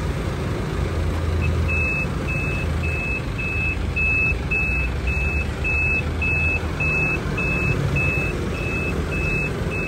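Toyota FD25-6 forklift's four-cylinder diesel engine running steadily as the truck drives. From about a second and a half in, its reversing alarm beeps about twice a second, a short high-pitched beep each time.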